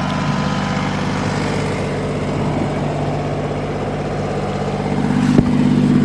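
Kubota BX23S sub-compact tractor's three-cylinder diesel engine idling steadily, with a single sharp knock about five seconds in.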